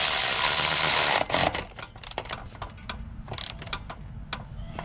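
A power tool runs in one loud burst for about the first second, tightening the minibike's rear axle, then stops. A few sharp metallic clicks follow from the tool and parts being handled.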